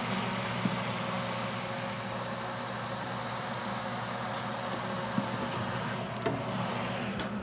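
Food dehydrator's fan running with a steady hum, with a few light clicks and knocks as its front door and trays are handled.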